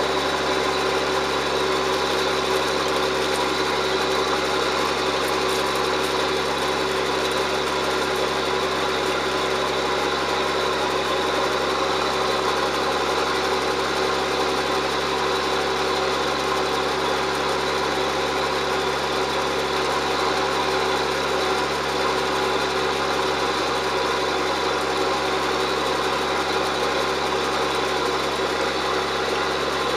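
John Deere 7710 tractor's six-cylinder diesel engine running steadily under load, pulling a reversible plough.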